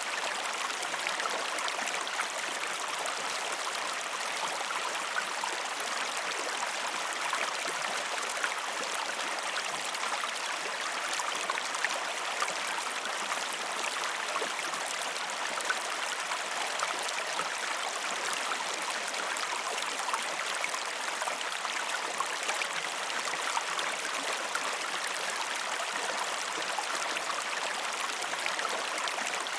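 River water flowing and rushing steadily, with many small splashes and drips.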